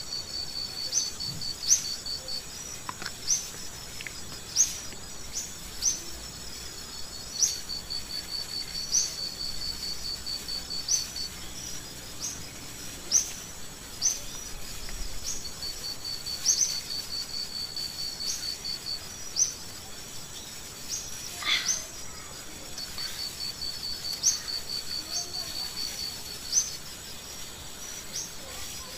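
Crickets and other insects chirping: a high pulsing trill that starts and stops, short sharp chirps every second or two over a steady high whine. One falling bird call comes about three-quarters of the way through.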